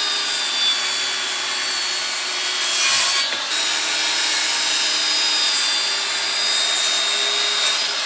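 Corded circular saw running under load as it cuts along a timber board, a steady motor whine with the rasp of the blade in the wood. A little after three seconds in, the cutting noise breaks off briefly and then resumes.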